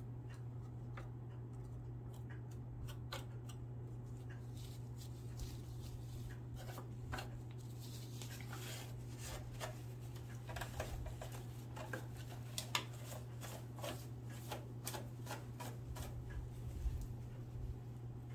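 Lint and fuzz being picked and brushed out from under a sewing machine's needle plate: scattered light clicks and scratchy rubbing, busier from about six seconds in, over a steady low hum.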